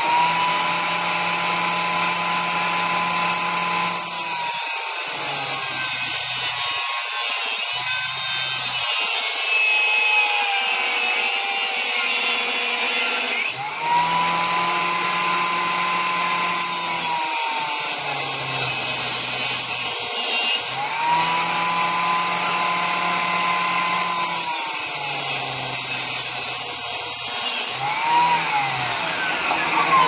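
A power saw cutting wood through several passes, its whine rising and then falling away about four times.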